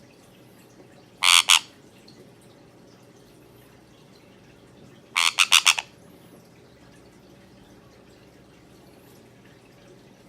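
Sun conure squawking loudly: a pair of sharp calls about a second in, then a quick run of about five calls a few seconds later.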